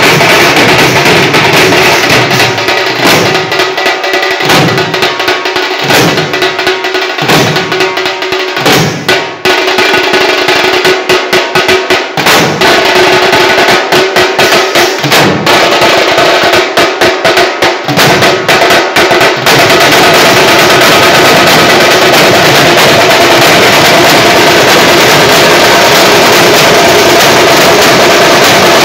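A group of marching drums beaten with sticks, played loud and together. For much of the time the beat comes as separate strokes with short breaks between them; after that it turns into an unbroken, dense roll.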